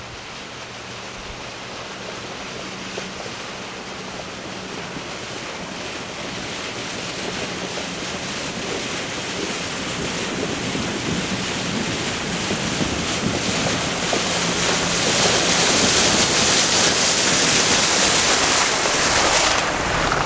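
An off-road 4x4 driving through a flooded trail toward the microphone: a rushing, splashing wash of water from its tyres over a steady low engine hum. The wash grows louder as the vehicle nears, is loudest as it passes, then drops off suddenly near the end.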